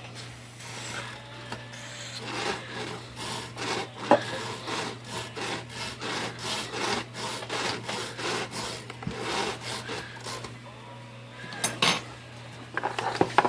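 Carriage of a Royal 10 typewriter being worked back and forth on its rails, scraping and rubbing in repeated strokes about twice a second. The carriage is binding on its guide rollers and will barely move. A few sharp clicks come near the end, then a loud knock.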